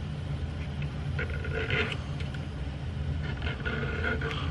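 A small metal file rasping back and forth across a muzzleloading rifle's percussion nipple, in two spells of short strokes over a steady low hum. The nipple is being filed down in diameter so that tight-fitting musket caps will seat and fire reliably.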